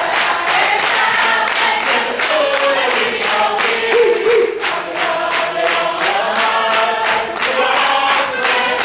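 A group of voices singing together over steady rhythmic hand clapping.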